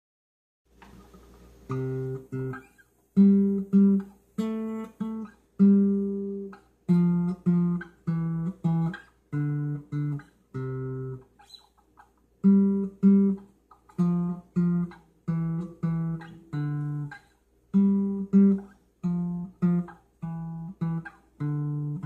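Guitar music: chords played one after another about two seconds in, each ringing briefly and dying away before the next, in a slow repeating pattern.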